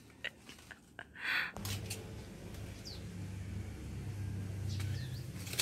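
Outdoor background: a few light clicks, then a steady low hum that starts about a second and a half in and swells slightly toward the end, with a couple of faint bird chirps over it.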